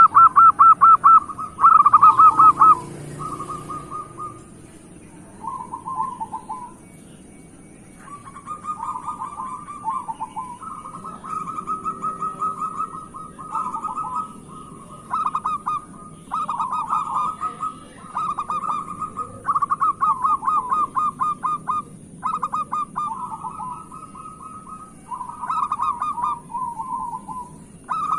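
Zebra dove (perkutut) cooing: repeated phrases of rapid, stuttering coos, broken by a few pauses of a second or two.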